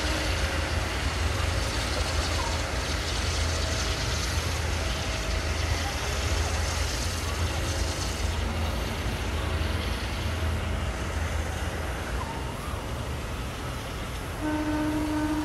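Railway locomotive running steadily: a low rumble under a hiss that eases off about halfway, with a steady pitched tone coming in near the end.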